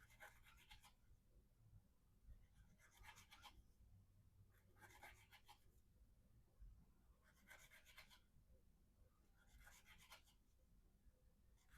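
Faint, short rasping cuts of a Spyderco Endura 4's VG-10 blade slicing through rope, five cuts about every two and a half seconds.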